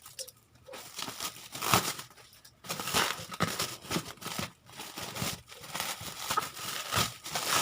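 Bubble wrap crinkling and rustling in irregular bursts as it is handled and pulled off the packaged item, with a short lull partway through.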